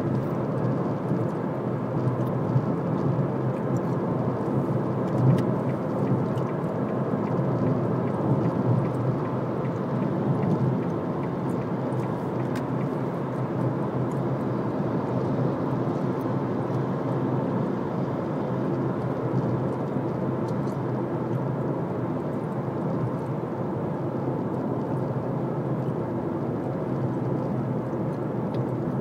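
Steady road noise inside a car cruising at motorway speed: an even rumble of tyres and rushing air.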